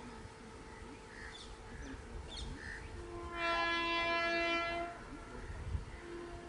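Indian Railways WAP4 electric locomotive sounding its horn in one long blast of about a second and a half, a little past halfway, over the low rumble of the approaching train. A few bird chirps come before the horn.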